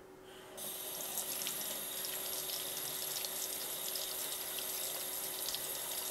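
Kitchen tap running, water splashing onto a makeup brush and silicone cleaning mat in a stainless steel sink; the water comes on about half a second in and then runs steadily.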